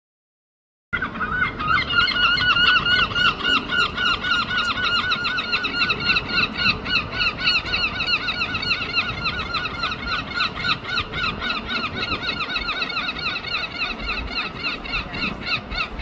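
Two herring gulls calling together in the long call: a rapid, unbroken series of loud, pitched 'kyow' notes, about four a second, starting about a second in.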